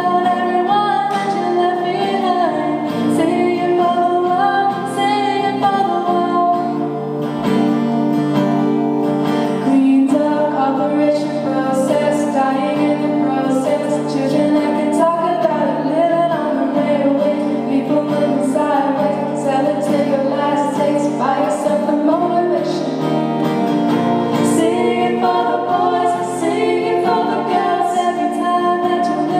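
Music with voices singing together, sustained and steady.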